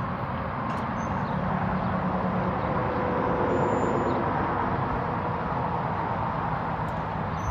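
Steady low rumble of vehicle engines and road noise, swelling slightly around the middle.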